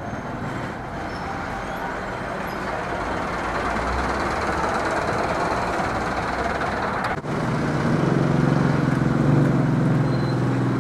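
Road vehicle noise: a steady rushing that slowly grows louder. About seven seconds in it drops out briefly, and a steady, low, pitched engine hum takes over.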